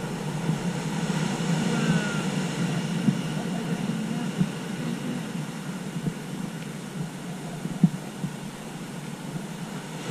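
Ocean surf breaking on a rocky shore and washing through the rocks: a steady rushing noise that swells and eases, with a few brief sharp clicks.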